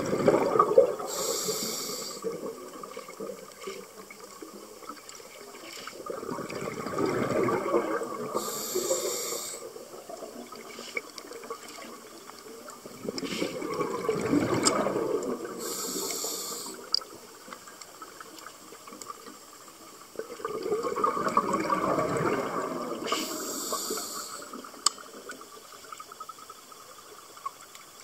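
Scuba diver breathing through a regulator, heard underwater: four slow breath cycles, each a short hiss of inhaled air through the regulator and then a rumbling gush of exhaled bubbles lasting a few seconds.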